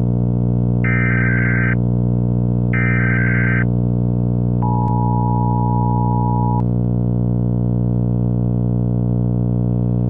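Emergency Alert System style alert sequence. Two short bursts of warbling digital header data tones come about one and three seconds in, followed by the two-tone EAS attention signal held for about two seconds, all over a steady low buzzing drone.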